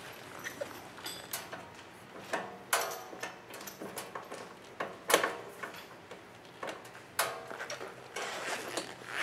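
Metal parts being handled and fitted by hand: irregular clanks and knocks, several with a short metallic ring, the loudest about five seconds in, with small clicks and rattles between.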